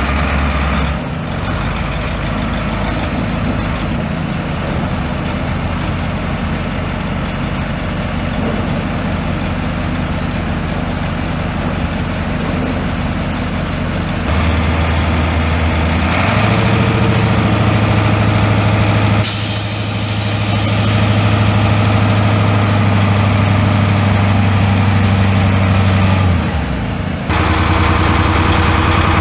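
Caterpillar 3208 V8 diesel engine of a dump truck running, idling at first, then speeding up in two steps about halfway through and dipping briefly near the end. A sudden burst of air hissing comes about two-thirds of the way in and fades over a few seconds.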